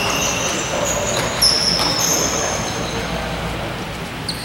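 Basketball shoes squeaking on a hardwood gym floor: a string of short, high squeaks, most of them in the first three seconds, over a background murmur of voices.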